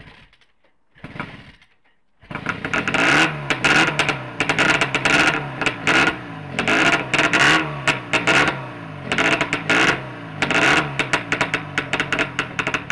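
Vintage Scott TT Replica's water-cooled two-stroke twin engine, freshly top-end rebuilt, being kick-started: a couple of short kicks, then it catches about two seconds in and runs, its loudness rising and falling in repeated bursts as the throttle is opened and closed.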